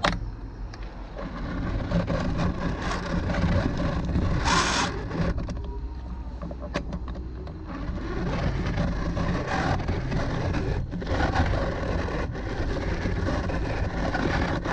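Electric kitchen blender running under load, churning oranges with water into juice; it grows louder about eight seconds in. There is a short hiss about four and a half seconds in.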